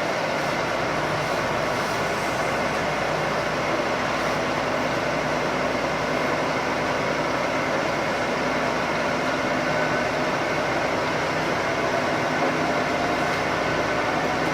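Cabin noise of a JR Shikoku 2000-series diesel express train under way: steady diesel engine and running noise with the rumble of wheels on the track, as the train gathers speed after departure.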